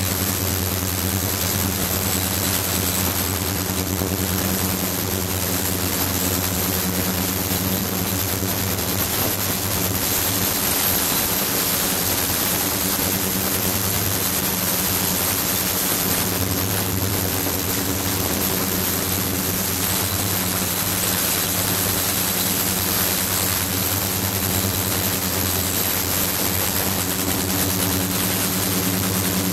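Ultrasonic cleaning bath running steadily with a glass container in its water. The sound is a low hum with overtones under a dense hiss from the cavitating water, plus a thin, steady high tone.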